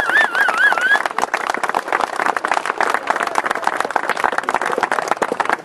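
Outdoor audience applauding steadily with many hands clapping. In the first second someone whistles a wavering high note.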